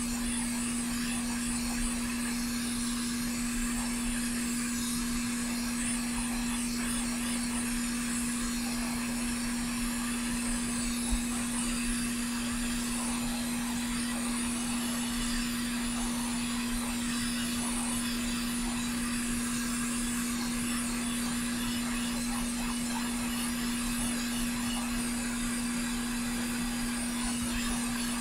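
Hot air rework station blowing hot air onto an HDMI connector's solder joints to melt them for desoldering. It makes a steady blower hum with a constant hiss of air.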